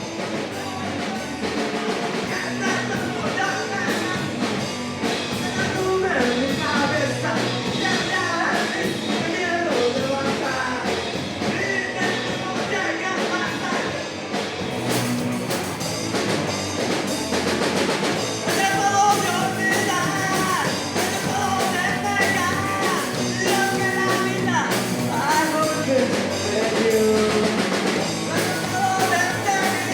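Rock song with a singer over a band, drums keeping a steady beat.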